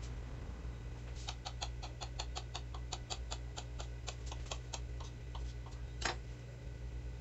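Quick light clicks of a small knife blade striking a stone countertop as a rope of biscuit dough is cut into small pieces, about five a second for a few seconds, then one louder click about six seconds in.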